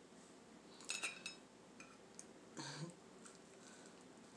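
A few light metallic clinks and ticks of a knife and fork being picked up and set against a plate, the sharpest about a second in.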